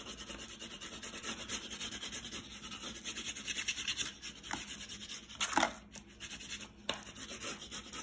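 Black wax crayon rubbed on its side across paper in quick back-and-forth strokes, a steady scratchy rubbing. A brief sharp knock stands out about five and a half seconds in.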